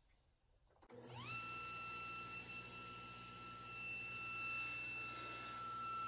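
Table saw starting up about a second in, its whine rising quickly to a steady pitch and then running on steadily while the sled carries a small workpiece through a rabbet cut.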